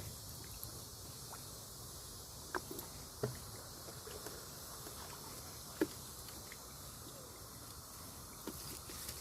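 Small water splashes and sloshing, with three short sharp splashes, the loudest about six seconds in, over a steady hiss.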